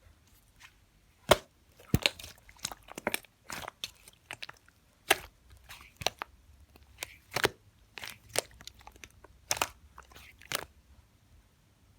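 Purple slime being squeezed and pressed by hand, giving a string of irregular sharp crunchy clicks and short crackles.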